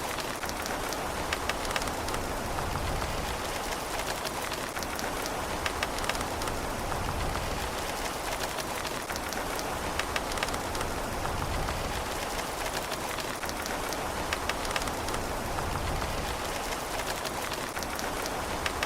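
Steady rain falling, a constant hiss with many separate drops ticking on a hard surface.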